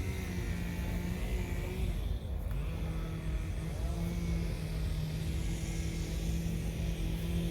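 An engine running steadily with a low hum and rumble that breaks off briefly about two seconds in, then carries on.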